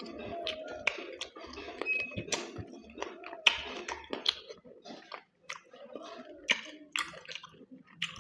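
Close-up eating sounds: wet chewing and lip smacks while eating mutton curry, with many irregular sharp clicks, the loudest about three and a half seconds in.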